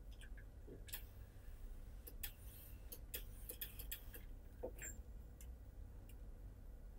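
Faint scattered clicks, light knocks and short rustles as an iron and a padded pressing ham are handled over the sleeve seam of a wool tweed jacket during pressing.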